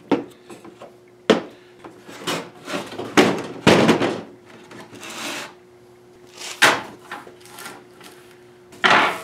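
Wooden fence pickets being handled on a workbench: a string of sharp wooden knocks and clatters as boards are set down and shifted, with longer scraping slides of board on board or table, one about four seconds in and another near the end.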